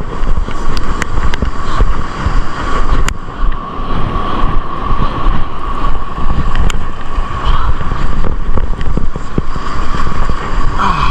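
Wind buffeting the microphone in an uneven low rumble, over the steady noise of surf, with a few scattered clicks.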